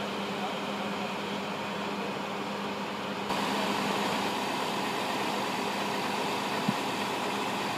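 Steady hum of an idling vehicle engine, which gets louder about three seconds in, with one short click near the end.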